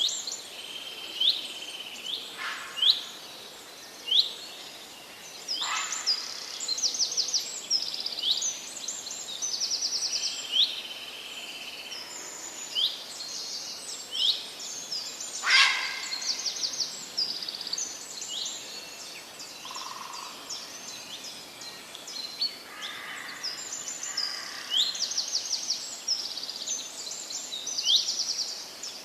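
Several songbirds singing and calling together: rapid high trills and short sweeping chirps, over a steady hiss of background noise.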